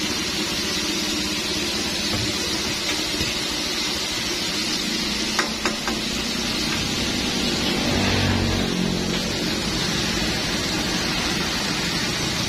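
Battered chicken deep-frying in a wok of hot oil, the oil sizzling and bubbling steadily. Two sharp clicks come a little before halfway, and a low hum swells briefly about two-thirds of the way through.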